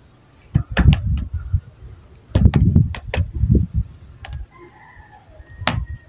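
Sharp clicks and knocks from the bottom cover of a Jumper EZbook X3 laptop as fingers press and pry along its edge to work it loose, some single and some in quick clusters.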